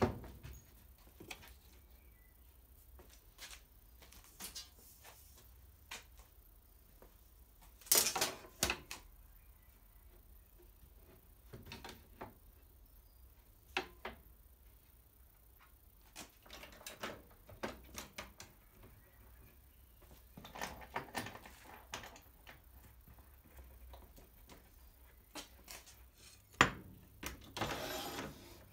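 Irregular clicks, knocks and short rattles of a Kreg flip stop and its aluminium measuring track being slid and set along a wooden saw fence. The loudest knocks come about 8 seconds in and again near the end.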